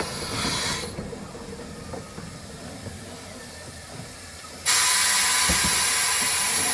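Small 15-inch-gauge steam locomotive Fox rolling slowly into the platform, with low rumbling and scattered clicks and clanks from its wheels and motion. About four and a half seconds in, a loud steady hiss of escaping steam starts suddenly.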